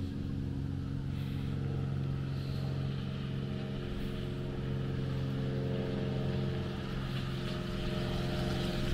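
An engine idling steadily, a low hum that holds one pitch.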